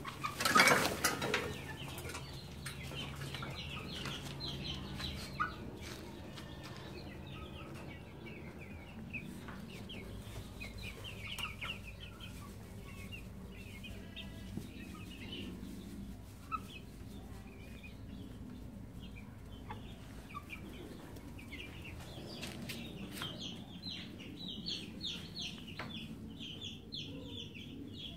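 Chickens clucking and baby chicks peeping in short, high chirps, with a brief loud flurry at the start. The peeping grows busier near the end.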